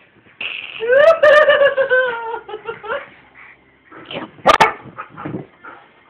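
Dogs playing: a long whining cry that rises and then slowly sinks, then a short, sharp bark about four and a half seconds in, with smaller yips and scuffles between.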